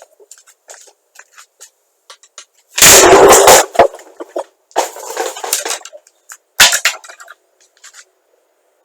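A coconut subjected to 8 kV DC: faint crackling, then about three seconds in a very loud burst lasting about a second as it blows apart, followed by two more bursts, a longer one about two seconds later and a short sharp one near seven seconds.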